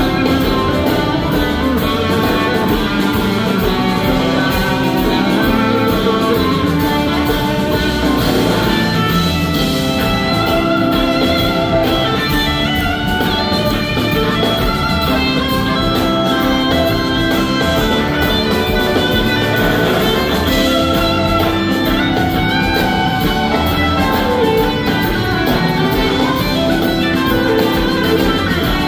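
Live blues-rock band playing an instrumental passage: two electric guitars playing over a drum kit, recorded from the audience.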